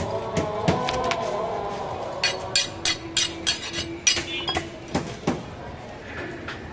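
Butcher's knives and cleaver knocking and clinking on a wooden chopping block and on each other: about a dozen sharp, ringing knocks in quick irregular succession through the middle, with voices in the background at first.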